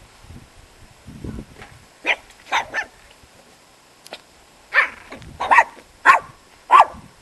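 Small dog, a chihuahua, barking in short, sharp, high-pitched yaps: three quick barks about two seconds in, then four more about half a second apart in the second half.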